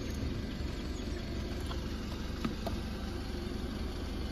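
Steady low hum of a 2022 BMW X3 idling, with the electric driver's seat motor running as the seat switch is worked and a few faint clicks. The seat is moving again now that its 30 amp fuse F53 is back in.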